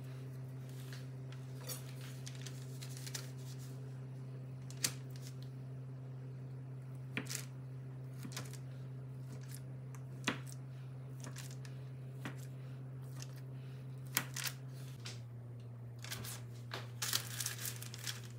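Scattered light clicks and taps of hand food preparation over a steady low hum, with a quick flurry of them near the end.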